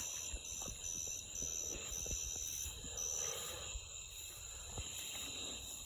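Night insects, crickets or similar, chirping in short high-pitched pulses over a steady high drone, with faint scattered low knocks.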